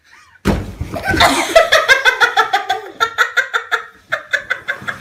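A thump about half a second in, then a baby laughing hard in quick repeated bursts, about four a second.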